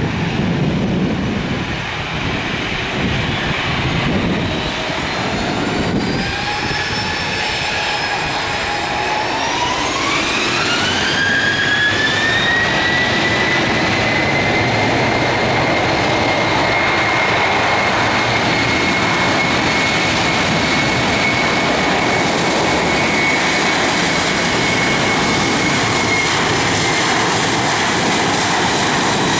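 Boeing 737 CFM56 turbofan engines spooling up to takeoff thrust. The fan whine climbs in pitch about six to twelve seconds in, then holds as a steady high whine over a loud rushing engine roar as the jet starts its takeoff roll.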